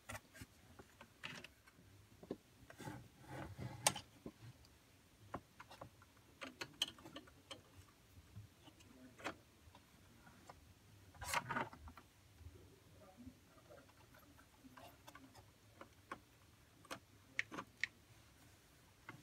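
Small irregular clicks and rustles of wires and plastic connectors being handled and plugged in at the speaker's circuit board, with a few louder clusters of handling about four seconds in and again around eleven seconds.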